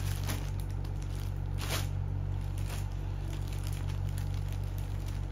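Clear plastic packaging crinkling and rustling as a folded fabric sofa cover is pulled out of its bag, with one louder crinkle a little under two seconds in. A steady low hum runs underneath.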